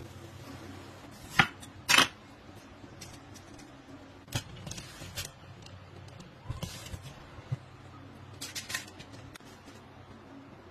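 Eggplant being sliced with a kitchen knife and on a mandoline: a series of short, sharp cutting and scraping strokes and knocks, the loudest about one and a half and two seconds in, over a low steady hum.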